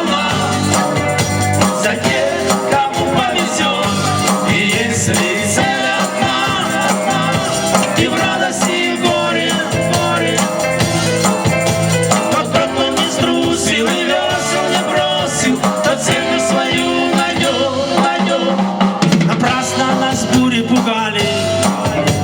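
A band playing a pop song with a drum kit keeping a steady beat; no sung words are made out in this stretch.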